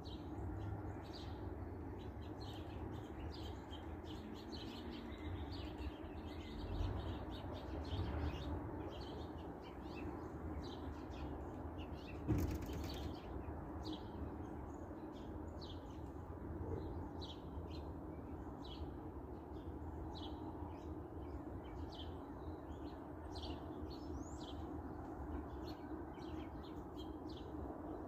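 Many small birds chirping in quick short calls, over a steady low background rumble. One sharp knock stands out about twelve seconds in.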